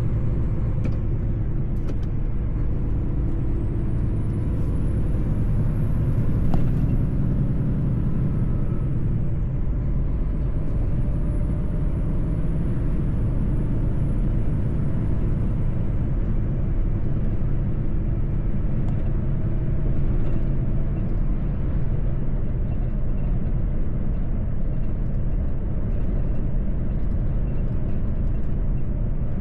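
Mercedes-Benz truck driving on the road: a steady low rumble of engine and road noise, with a faint high whine that rises and falls twice in the first half.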